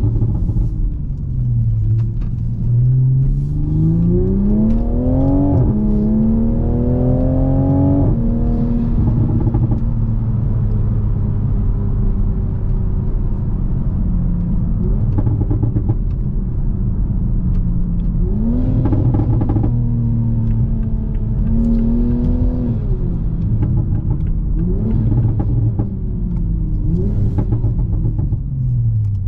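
Toyota GR Supra A90's turbocharged 3.0-litre inline-six engine through an HKS Hi-Power exhaust, driving. The revs climb twice in the first eight seconds with a gear change between, then settle into a long steady cruise with the pitch slowly sinking. In the second half come several shorter climbs, and the revs drop near the end.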